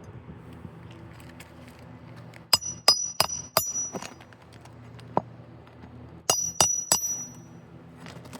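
Hammer blows on metal during a roof shingle repair: four quick strikes, then a single one, then three more, each with a short bright ring.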